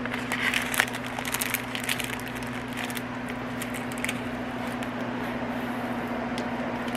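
Plastic packets of diamond painting drills being handled, making scattered crackles and small clicks, mostly in the first two seconds and again about four seconds in, over a steady low hum.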